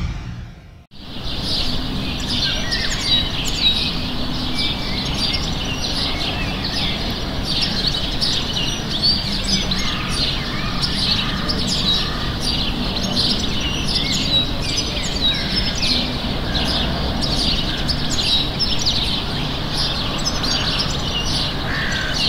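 A dense chorus of small birds chirping and tweeting rapidly and without pause, over a steady low rumble of city background noise.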